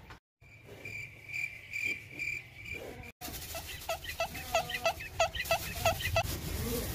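A cricket chirping, a steady high chirp about twice a second. After an abrupt cut, a run of quick high chirps that dip and rise in pitch, about three a second.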